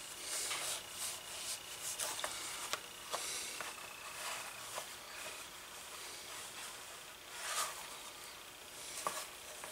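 Hands rubbing and flexing a black leather holster, working conditioner into the leather: faint soft rubbing and brushing with a few small clicks.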